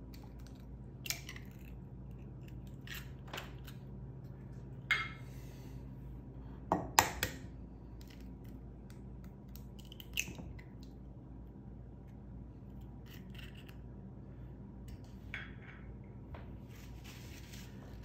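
Eggs cracked into a coffee mug by hand: a few sharp knocks and clicks of eggshell, the loudest about five and seven seconds in, with quiet shell handling between.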